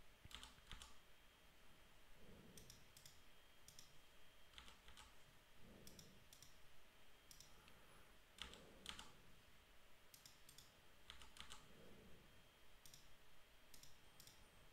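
Faint computer keyboard and mouse clicks, often in pairs or small clusters every second or two.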